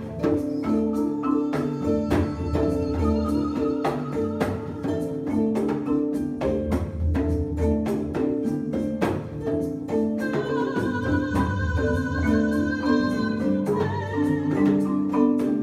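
A marimba repeats a low rolling pattern while a hand drum taps steadily alongside. A little past the middle, a high wavering note is held for about three seconds over the top.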